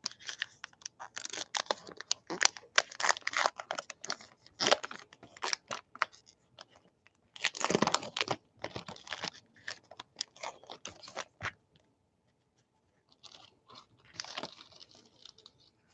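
A trading card pack's crimped paper wrapper being torn open and crinkled by hand: a run of irregular rustles and tearing, a brief pause, then more crinkling near the end.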